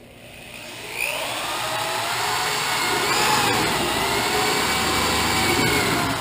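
A power tool runs for about five seconds: a steady hiss with a whine that rises and falls in pitch. It starts about a second in and stops near the end.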